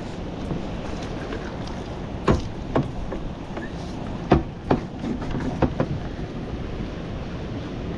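Suzuki outboard engine idling steadily with wind and water noise over the boat, broken by several sharp knocks and clunks between about two and six seconds in.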